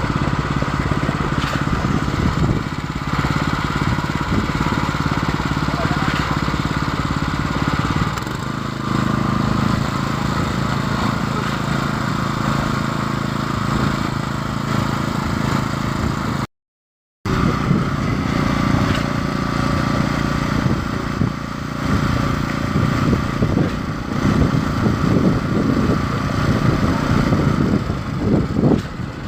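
Concrete pump's engine running steadily under load while concrete is being pumped. The sound cuts out completely for under a second about halfway through.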